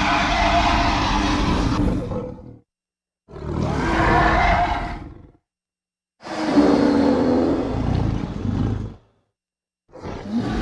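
Designed dinosaur roar sound effects for Daspletosaurus: a series of deep, rough roars, each about two to three seconds long, cut apart by dead silence, with another roar starting near the end.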